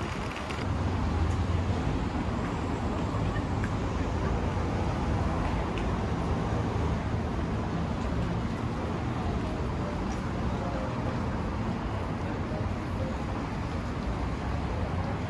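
City street ambience: a steady hum of road traffic, with indistinct voices of passers-by.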